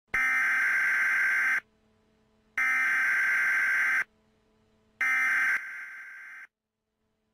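Emergency Alert System digital header: three bursts of shrill, warbling data tones, each about a second and a half long (the last one shorter) and about a second apart.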